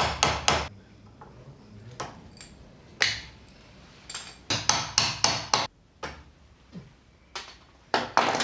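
Hammer blows on metal, coming in quick runs: about four at the start, a couple of single strikes, a run of about five around five seconds in, and a few more near the end. Each blow rings briefly.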